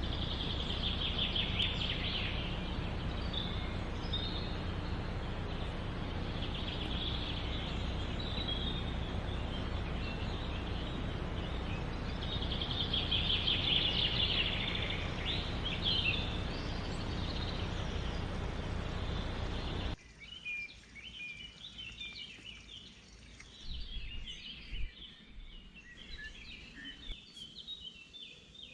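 Birds calling in repeated trilled phrases over a steady rushing background noise. About twenty seconds in, the noise cuts off abruptly and many short, quick chirps carry on.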